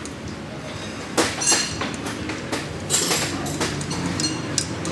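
Steel tire levers clanking and scraping against a spoked dirt-bike rim as the tire bead is levered over it on a tire-changer stand. A series of irregular metallic clanks, some with a short ring.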